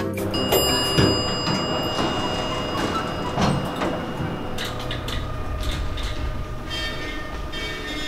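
Passenger elevator running with a steady rumble and a thin high whine as the car reaches the ground floor, then its doors slide open.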